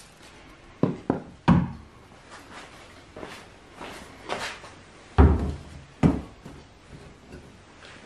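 Wooden slatted floor grate being handled and set down in a canoe hull: a series of sharp wooden knocks, three quick ones about a second in and two more, the loudest, past the middle, with fainter handling noises between.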